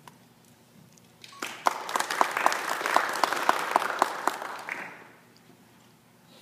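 Audience applauding for about three and a half seconds, starting about a second and a half in and dying away about five seconds in. One pair of hands near the microphone claps loudest, about four claps a second.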